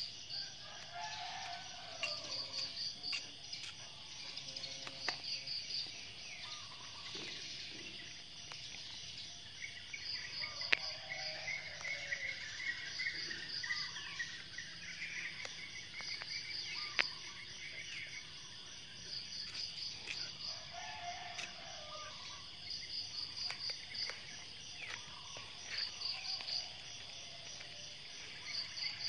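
Insects chirping outdoors in short pulsed trills that recur every few seconds, with bird chirps and a few faint clicks among them.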